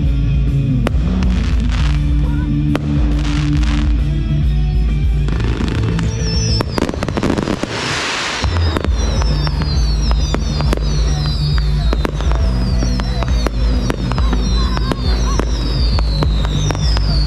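Fireworks show: shells bursting with sharp bangs and crackle over loud music. About seven seconds in comes a rushing burst, followed by a run of short, high, falling whistles.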